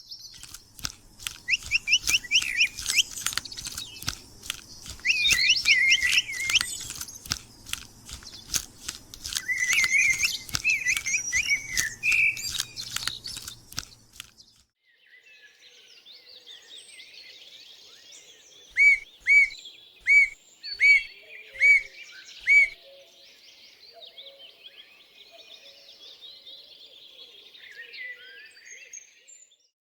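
Birds chirping and calling: for the first half, a busy mix of high chirps over sharp clicks; after a cut, a quieter chorus of calls with a run of seven loud, evenly spaced call notes, about two a second.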